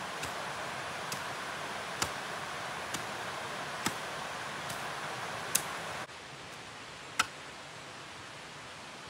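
Short sharp knocks, about one a second and unevenly spaced, over a steady hiss of background noise that drops suddenly about six seconds in.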